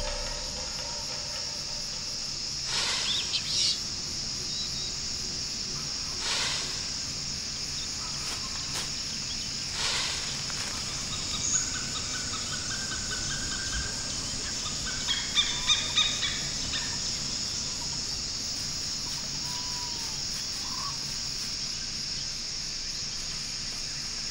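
Tropical forest ambience: a steady high-pitched insect drone with scattered bird calls, including a quick run of calls about two-thirds of the way through and a few short chirps near the end. A few brief louder noises come early on in the first half.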